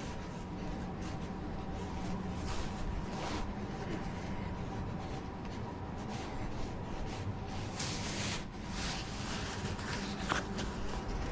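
Night street ambience: a steady low hum with two faint high steady tones, light footsteps ticking about twice a second, and a brief rushing swell about eight seconds in.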